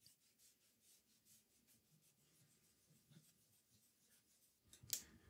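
Faint rubbing of a microfiber cloth wiping the rusty metal control panel of a tube amplifier, with a brief louder noise near the end.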